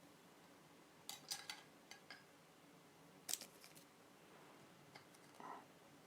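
Trading cards being handled and sorted: a few soft clicks and flicks against near silence, the sharpest about three seconds in.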